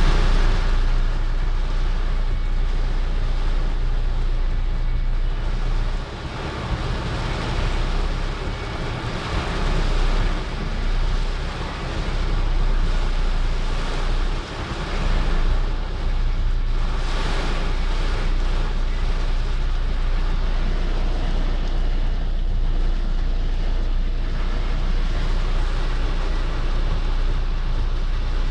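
Torrential rain hitting a car's body: a loud, dense, steady patter of noise over a deep low rumble, easing briefly twice.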